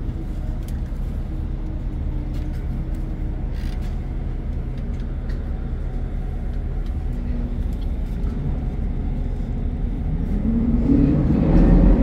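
Loud ship's machinery running with a steady low drone, growing louder about ten seconds in.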